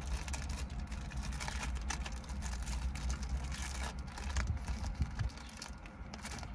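A steady low rumble inside a car cabin, with faint rustling and light ticks from a plastic sleeve and a paper manual being handled.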